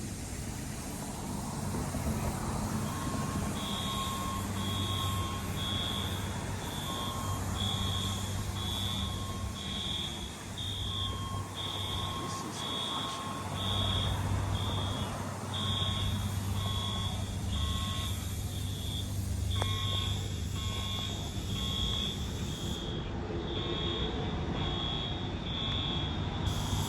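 Fire alarm sounder beeping a high-pitched tone in an even pulse, a bit faster than once a second, starting about three seconds in, over a steady low hum.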